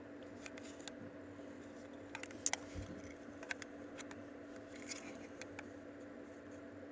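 Scattered light clicks and taps from handling small plastic remote controls and pressing their buttons, over a faint steady hum.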